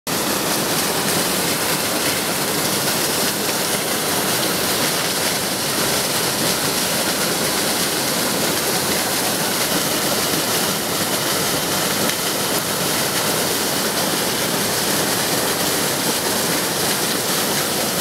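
Mountain waterfall dropping about 90 m in several steps, rushing steadily: an even, unbroken hiss of falling water.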